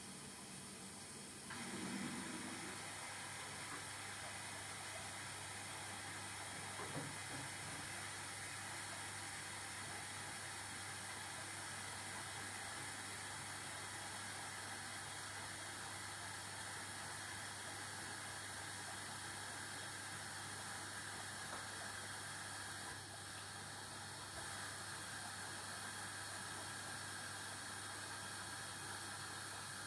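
Arçelik washing machine running with a carpet inside: a steady hiss over a low hum, getting louder about a second and a half in, with a single knock about seven seconds in.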